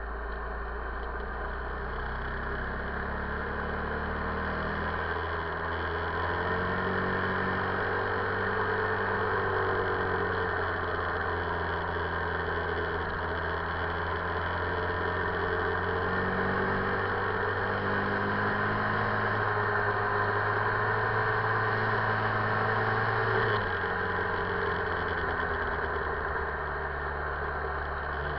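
2008 Buell XB9SX's air-cooled V-twin engine pulling at mid revs while under way, its note rising and falling with the throttle. The note drops suddenly about 23 seconds in.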